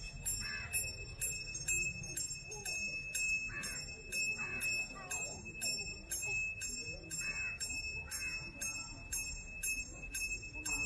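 Small metal bells jingling in a quick, even rhythm of about two to three strikes a second, with crowd voices murmuring underneath.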